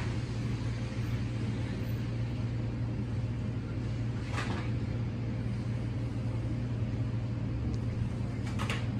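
A steady low mechanical hum, with a faint click about four seconds in and another near the end.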